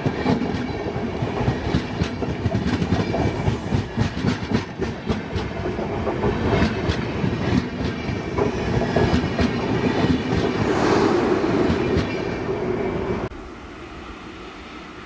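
Express train coaches passing close by at speed, the wheels clattering over rail joints in a rapid run of clicks over a steady rushing rumble. The sound cuts off suddenly about two seconds before the end, leaving only a faint steady background.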